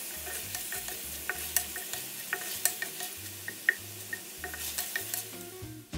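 Beef stir-frying in a stainless steel frying pan: a steady sizzle, with irregular clacks and scrapes of a wooden spatula stirring against the pan.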